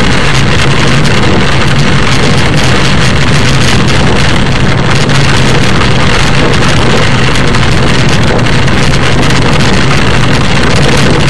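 Steady, loud noise inside a car driving on a rain-soaked road: the hiss of wet tyres and rain over a low, steady engine hum.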